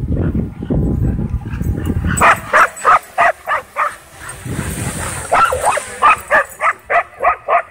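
A dog barking at a drone in two quick runs, about three to four barks a second, starting about two seconds in and picking up again after a short pause. A low rumble lies under the opening seconds.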